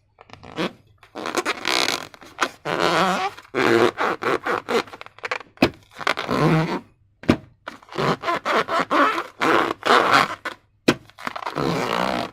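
Hands working slime and rubber balloons: a run of short noisy bursts one after another, with a few sharp clicks.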